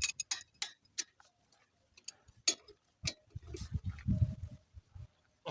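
Sharp, irregular metallic clicks of a spanner working the brake caliper bolts as they are tightened back, with some duller knocks of handling in the middle.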